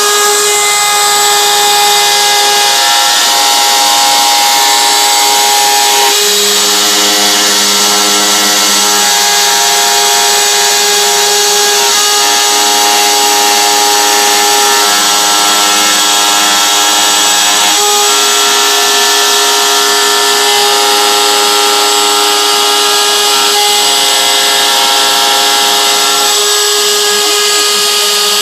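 CNC router carving V-grooves into a wooden cabinet-door panel with a V-bit. The spindle gives a steady loud whine with the hiss of the bit cutting wood. Under it, several motor tones jump to new pitches every few seconds as the machine changes direction along the cut path.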